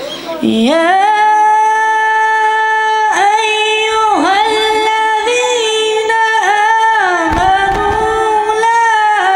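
A man's voice chanting Quranic recitation (tilawat) in a melodic style, starting with a rising glide about half a second in, then long held notes with ornamented turns of pitch and short breaths between phrases.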